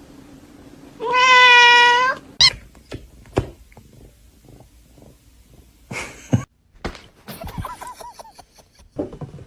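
A cat giving one loud, drawn-out meow of about a second, starting about a second in, followed by a few scattered knocks and a fainter, wavering call later on.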